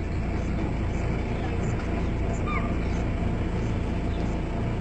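Vehicle engines idling steadily in a low hum, with a short high chirp about two and a half seconds in.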